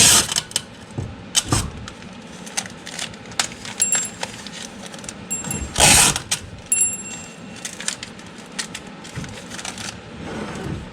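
Packing tape pulled off the roll and torn, twice about six seconds apart, amid paper crinkling and small clicks, with light ringing clinks of the steel impact swivel sockets knocking together in the middle.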